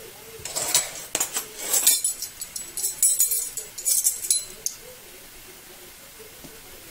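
Metal measuring spoons jingling and clinking as they are picked up and handled, a rapid run of bright metallic clinks lasting about four seconds and stopping before the end.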